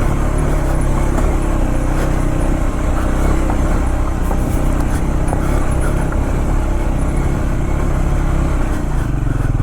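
Triumph Scrambler 400X's single-cylinder engine pulling the motorcycle up a steep, loose trail under steady throttle. The revs drop just before the end.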